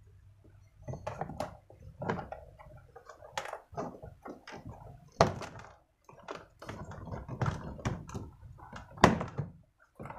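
Honda Civic plastic door trim panel being prised and pulled off the door: an uneven run of clicks, knocks and thunks as its retaining clips let go, the sharpest at about five and nine seconds in.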